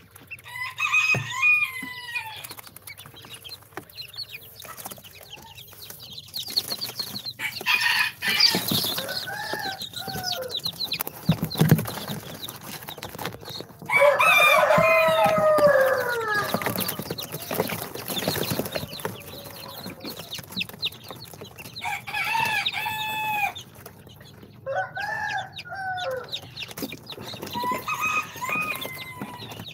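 Young chicks peeping and chirping in short falling calls, with a louder, longer falling call about halfway through.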